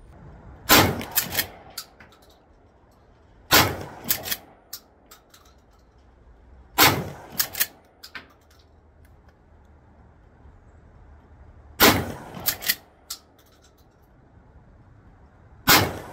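Five shots from a 12-gauge pump-action shotgun, a few seconds apart at an uneven pace. After each shot come a couple of quick clacks as the slide is racked to chamber the next shell.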